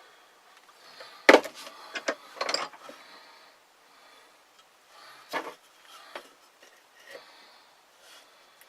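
Wood and tools handled on a table: a series of knocks and clicks, the loudest about a second in, then a quick cluster and a few lighter taps. There is no drill motor running.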